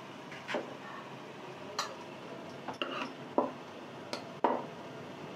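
Metal spatula clinking and scraping against a steel kadai while stirring a thick frying masala: about eight irregular sharp knocks spread across a few seconds.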